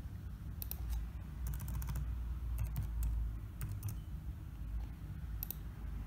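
Computer keyboard keys tapped in a few short, scattered runs, typing a number into a search box.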